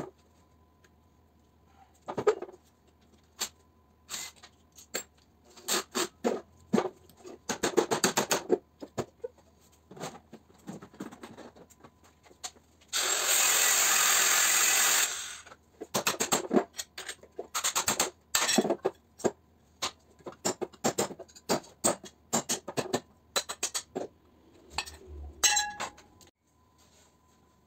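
Metal knocks and clanks of tools and parts while an electric motor's stator is taken apart, with a short burst of rapid rattling about eight seconds in. In the middle, a small handheld grinder cuts into the motor's metal for about two and a half seconds, throwing sparks; this steady grinding is the loudest sound.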